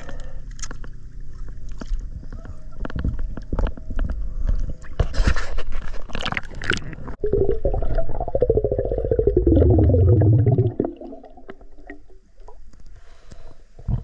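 Water splashing and sloshing against a camera at the surface, then muffled underwater gurgling and bubbling as it goes under, loudest from about eight to eleven seconds in before dropping away to a quiet underwater hiss.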